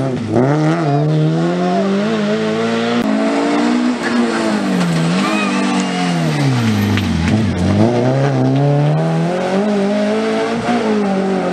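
Rally car engines, Renault Clio hatchbacks, driven hard: the engine pitch climbs as they accelerate, then drops sharply as they lift off and downshift for a bend, several times over, falling deepest about seven seconds in before revving up again.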